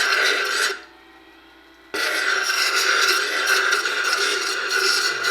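Turquoise cabochon rubbing against the spinning white polishing pad of an Ameritool universal grinder-polisher charged with 14,000 mesh diamond compound, the final polishing step: a steady rubbing hiss with a faint tone in it. It drops away for about a second near the start, then resumes.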